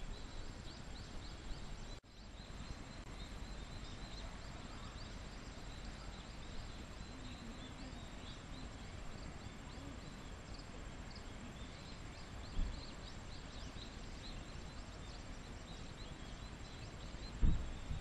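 Outdoor ambience of many small, high chirping insects calling over and over, with a low wind rumble on the microphone. A soft thump comes once in the middle and again near the end.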